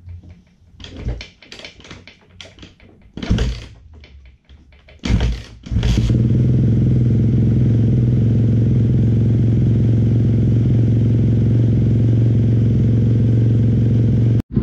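Yamaha YZ250F 250cc four-stroke single being kick-started: a few clattering kicks, then about six seconds in it catches and runs steadily at idle, possibly still cold.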